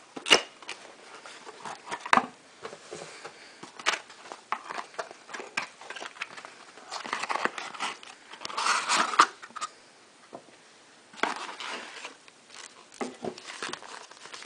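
Cardboard packaging being handled as a camera lens is taken out of its box: irregular knocks and scrapes of the box flaps, with bursts of rustling and crinkling that are loudest a little past the middle.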